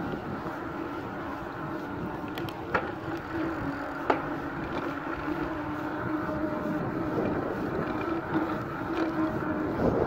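Giant Talon 4 mountain bike's Maxxis tyres rolling on tarmac with a steady hum, under wind rushing over the handlebar-mounted microphone. Two sharp clicks about three and four seconds in.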